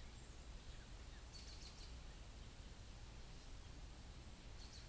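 Quiet outdoor ambience: distant birds chirping in two brief clusters of quick high notes, about a second and a half in and again near the end, over a faint low steady rumble.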